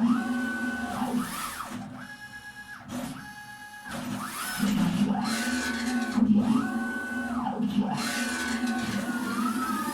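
CNC machine's X and Y axis drives making rapid back-and-forth moves. Each move gives a motor whine that rises in pitch as the axis accelerates, holds steady, then falls as it brakes, repeating about every second and a half over a steady hum.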